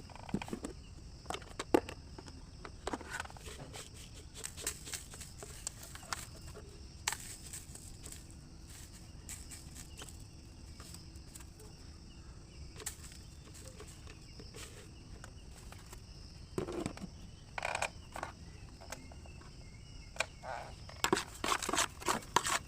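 Crickets chirring steadily in the background, with scattered short scrapes and knocks of hands-on kitchen work, busiest about 17 seconds in and near the end.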